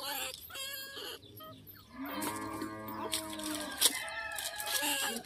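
Chickens clucking, then a long drawn-out pitched farm-animal call lasting about two seconds, starting about two seconds in, with a few light knocks around it.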